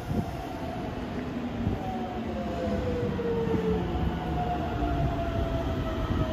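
Keikyu 600 series electric commuter train running into a station platform and braking. Its motors give a whine that falls slowly in pitch as it slows, over the rumble of the wheels on the rails.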